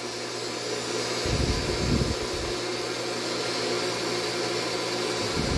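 Mini rotary polisher running steadily, its foam pad working polishing compound on painted bodywork, with a few low bumps about a second and a half in.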